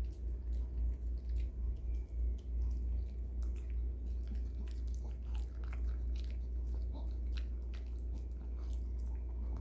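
A Maltese dog chewing raw cucumber pieces: a run of irregular crisp, wet crunches and bites, over a steady low hum.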